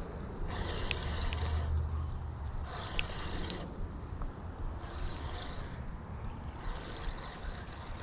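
Spinning fishing reel being cranked in short spurts, each a brief whirring hiss with pauses between, as a hooked turtle is brought in. A low rumble runs underneath.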